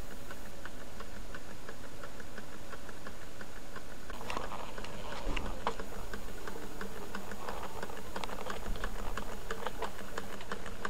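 Low temperature differential beta Stirling engine running, its linkage ticking steadily about four or five times a second. From about four seconds in, rustling and a couple of knocks join the ticking.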